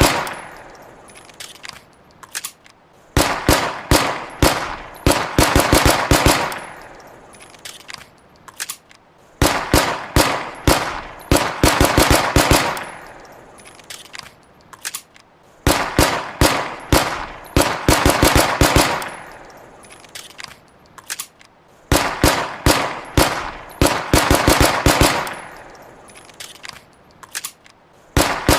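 Walther PPK pistol gunfire sound effect: bursts of rapid shots that repeat about every six seconds, each burst fading out in a ringing echo.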